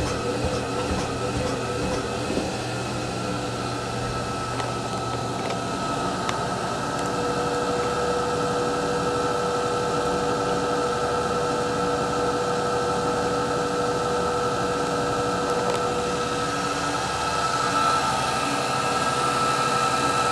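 Steady machine hum with a few held whining tones, unchanging throughout.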